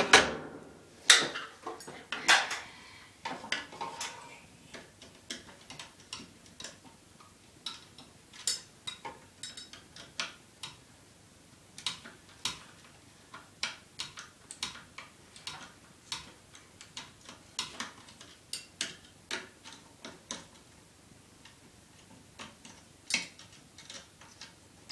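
Phillips screwdriver turning out a ceiling fan's blade screws by hand: a run of small irregular clicks and ticks of metal on metal, with a few louder knocks in the first few seconds.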